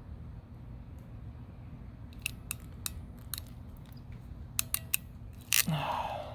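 Ratcheting hand crimping tool squeezed shut on a wire's connector pin terminal: a series of sharp small clicks, then a loud snap with a short rasp near the end.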